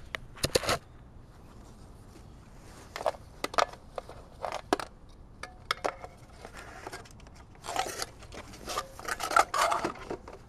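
Scattered rustles, scrapes and clicks of gloved hands handling a 12-volt tire-sealant pump unit and feeding its cord through it, busiest near the end.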